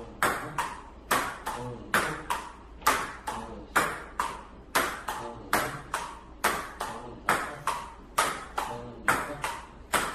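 Steady, rapid series of sharp ringing taps, about three a second, as of a light hard object being struck or bounced over and over.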